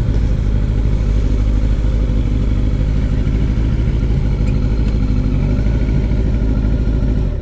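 Sport motorcycle engine running steadily at one constant pitch, with no revving.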